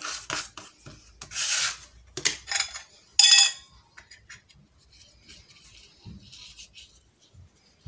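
A plastic dough scraper scraping shortcrust dough off a granite worktop, then dough being pressed and rubbed into fluted metal tartlet tins. A brief, loud ringing knock comes about three seconds in.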